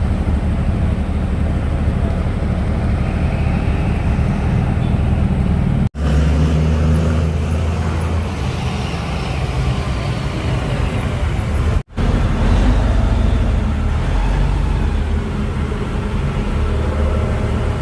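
Heavy diesel trucks running in road traffic, a steady deep engine rumble. The sound cuts out abruptly for an instant twice, about six and twelve seconds in.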